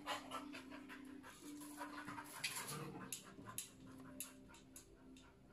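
A dog panting in quick, uneven breaths, over a faint steady hum.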